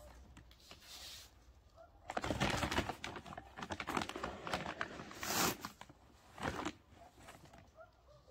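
Irregular rustling and crinkling noises in several bursts, the loudest from about two to three seconds in, with faint bird calls behind them.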